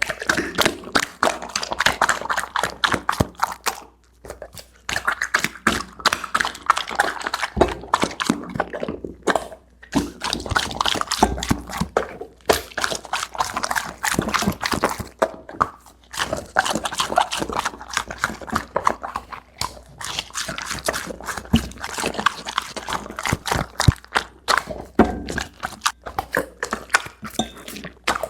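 Sulcata tortoise biting and chewing food: a fast, wet run of crunching and clicking bites, broken by a few short pauses.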